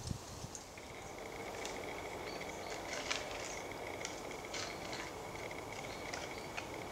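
Fallow buck rubbing his antlers against a tree trunk to mark his territory: scattered short scrapes and clicks of antler on bark, the strongest about three seconds in, over a steady woodland background with a faint continuous high note.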